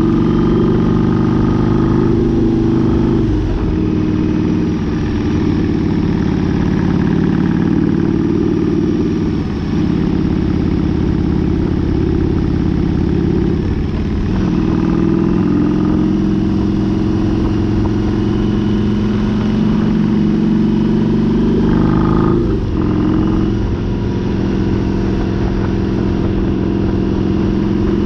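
Harley-Davidson V-Rod motorcycle's liquid-cooled V-twin engine running at road speed under a steady rush of wind and road noise. The engine note breaks and changes pitch about four times as the throttle and gears change.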